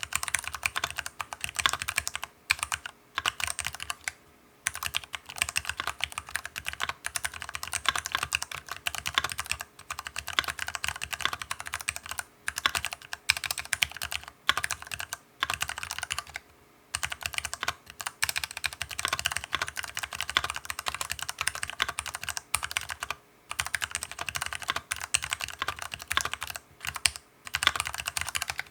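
Fast typing on an Archon FX2 all-aluminium mechanical keyboard with lubricated Cherry MX Brown switches and silicone sound-dampening pads in the case. The keystrokes come in dense runs broken by brief pauses.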